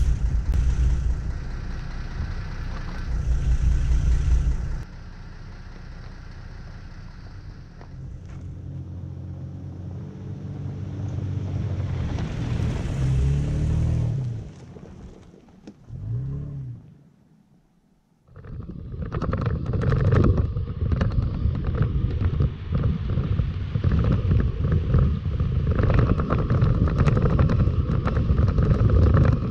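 Air hissing out of a truck tyre's valve while wind buffets the microphone. Then a Toyota Tacoma drives past on a dirt road, rising and falling as it goes by, and fades away. From about two-thirds of the way in, a steady loud rumble of tyres on gravel and wind, heard from a camera mounted on the truck's hood as it drives.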